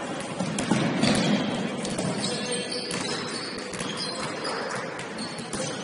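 Basketball bouncing on a gym court, as repeated sharp knocks over a background of players' voices and hall noise.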